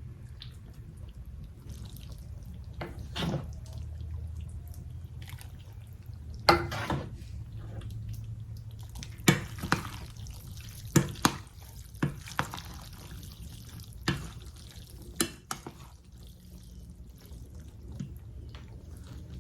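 A spoon stirring elbow pasta into thick chili in a pot: wet squishing, with about eight sharp knocks of the spoon against the pot spread irregularly through.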